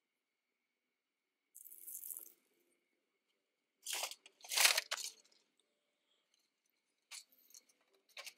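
Handling of a plate and metal kebab skewers: a soft rustle, then two louder scraping rustles about four seconds in as a hot dog is slid from the skewers onto the plate, and a few light clicks near the end.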